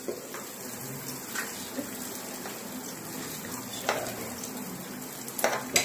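Raw rice and lentils being scooped by hand into hot mustard oil in an aluminium pressure cooker: a steady hiss as the grains sizzle and fall into the pan. There are a few sharp clicks, one about four seconds in and two near the end.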